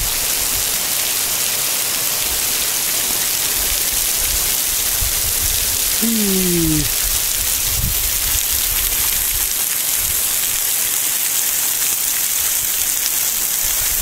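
Water from the Lower Emerald Pool waterfall streaming off a rock overhang as a heavy shower of drops, making a steady, rain-like hiss. Partway through there is a brief falling-pitch voice-like tone and some low rumbling.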